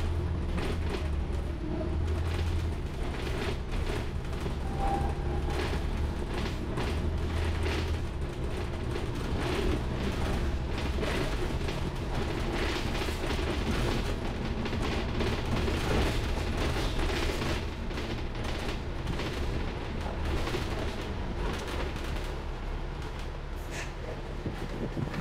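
Inside a moving double-decker bus: a steady low engine and road rumble, with frequent short rattles and knocks from the bodywork.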